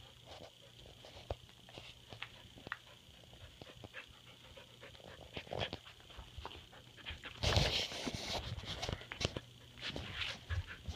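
Puppies playing: panting and scuffling, with scattered clicks and scratches and a louder burst of scuffling about two-thirds of the way through.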